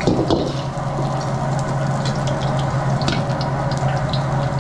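Sliced meat sizzling and crackling in a wok, stirred with a metal ladle that scrapes the wok loudly right at the start, over the steady hum and roar of a restaurant wok range.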